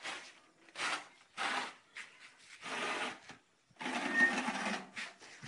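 Steel mould of a cement block vibration press rattling in a series of short, irregular bursts, about six in all. The longest and loudest lasts about a second, near the end.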